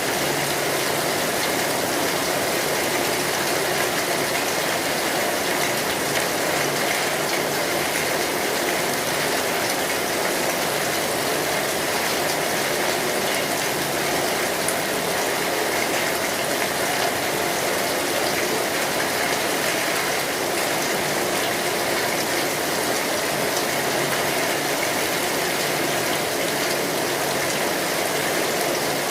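Steady heavy rain drumming on a metal roof, with the small pops and crackles of a wood fire.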